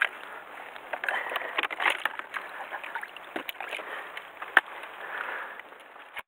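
Rustling and light knocks from a fish and plastic bottles being handled inside a plastic cooler box, with one sharp knock about two-thirds of the way through as the cooler lid is shut.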